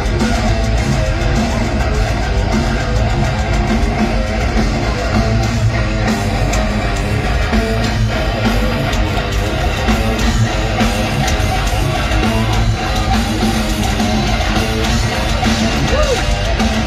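Loud, steady heavy metal music from a concert PA, with electric guitar, heard from inside the crowd.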